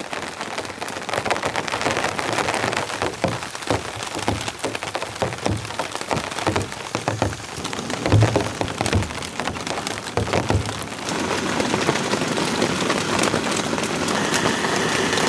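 Rain falling on the tarp overhead: a dense patter with many sharp individual drop ticks. About eleven seconds in it grows heavier and steadier as the rain comes back harder.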